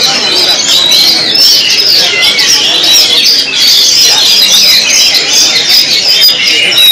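Many caged competition songbirds singing at once, a dense, unbroken chorus of overlapping high chirps, trills and warbles.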